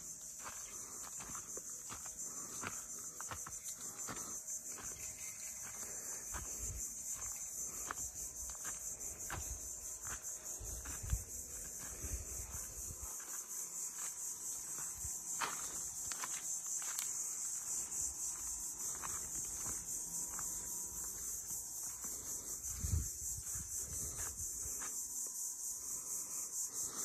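Steady, dense chorus of insects trilling in a rapid high-pitched pulse, with scattered light clicks and a few low thumps.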